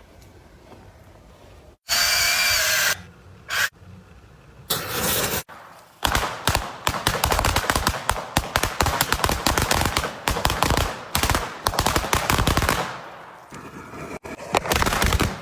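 Blasting charges going off: a loud burst about two seconds in and two shorter ones after it, then a rapid crackle of many sharp bangs for about seven seconds, like a long string of firecrackers, fading near the end.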